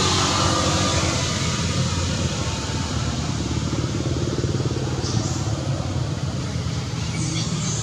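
A motor vehicle engine running steadily with a low hum. A few faint high chirps come in about five and seven seconds in.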